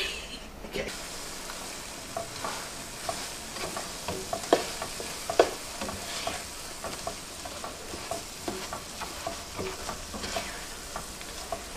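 Cheesy scrambled eggs sizzling in a nonstick frying pan while a slotted plastic spatula stirs and breaks them up. Irregular scrapes and knocks of the spatula on the pan sound over a steady frying hiss.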